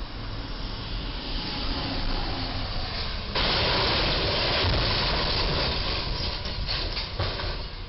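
Box truck's cargo box striking and scraping along the steel beam of a low railroad bridge: a sudden loud scraping noise starts about three seconds in and lasts two or three seconds. Several sharp clatters follow as pieces fall to the road.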